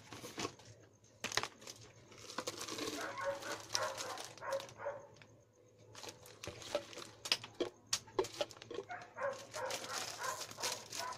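Clear plastic display jar being handled: its yellow screw lid twisted off and the jar knocked and set down, in a run of irregular clicks and knocks with a little wrapper crinkling. Faint whining sounds come and go in the background.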